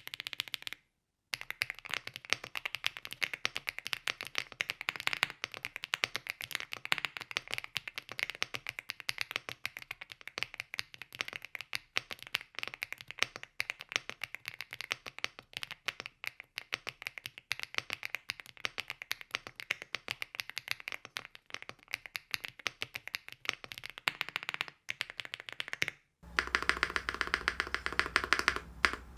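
Rapid, continuous typing on a stock Rainy75 Standard mechanical keyboard with WOB Crape Myrtle (HMX Violet) switches: a dense run of key clacks, with a brief pause about a second in. Near the end the typing goes on over a steady low hum.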